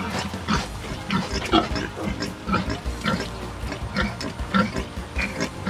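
A sow and her suckling piglets grunting and squeaking in a quick series of short calls, about two a second, as the piglets nurse.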